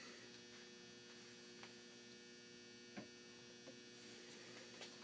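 Near silence with a steady low electrical hum, and a single faint click about three seconds in.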